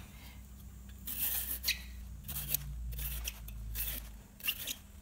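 Vegetable peeler shaving long ribbons off a raw courgette: a run of short scraping strokes, about one every half second, starting about a second in.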